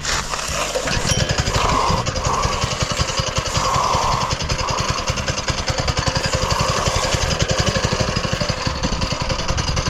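Small gasoline engine of a concrete power trowel running steadily with a fast, even chug, finishing the slab surface; it sounds like it 'purrs like a kitten'.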